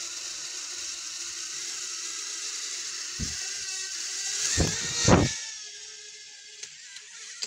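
Small toy drone's electric rotors whirring steadily, with a few loud thumps about three to five seconds in. The whir then fades and cuts off at the end as the battery runs flat.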